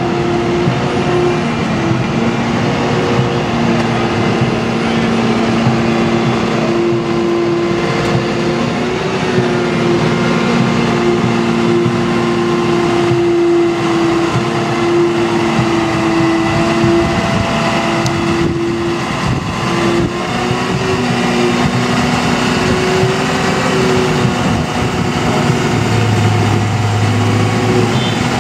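Diesel engine of a wheel loader running as it drives slowly past, a steady engine drone with a few held tones.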